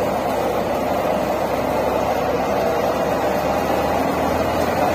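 Tractor-powered Santosh soybean thresher running at full speed with a steady, dense mechanical drone.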